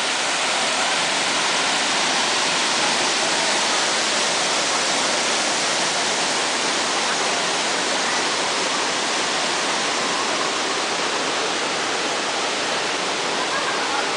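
Steady rush of a waterfall pouring into a rock pool, an even, unbroken roar of falling water.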